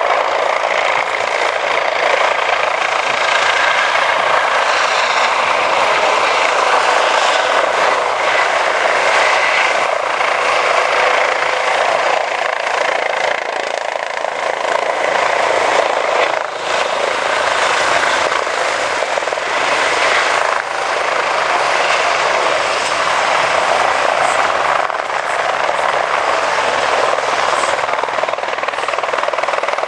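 Several helicopters flying display passes make a steady rush of rotor and turbine noise, dipping briefly twice about halfway through.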